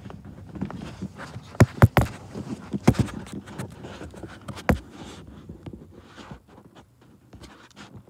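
Sharp clicks and knocks of a finch pecking and cracking black oil sunflower seeds in a window-mounted feeder, with seeds rustling around it. The loudest knocks come in clusters about two and three seconds in and once near five seconds, then the pecking thins out.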